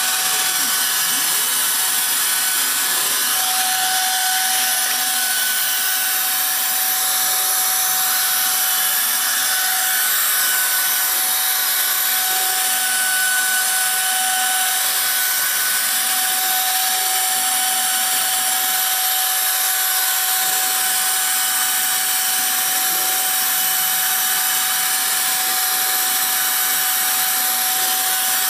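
CNC router spindle running with a steady high whine as its bit cuts outlines through melamine board, with a constant rushing cutting noise.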